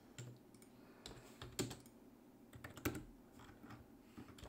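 Computer keyboard keystrokes: scattered faint key clicks, with two louder ones about a second and a half and three seconds in.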